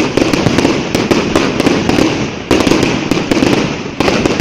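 Fireworks crackling: a dense, rapid run of pops and crackles that starts suddenly and is loud, with fresh surges about halfway through and again near the end.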